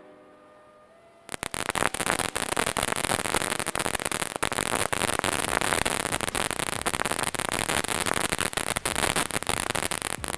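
Freedom Star firework fountain's crackle finish: a loud, dense crackling of countless rapid pops that starts suddenly about a second in, over the hiss of its angled spark sprays.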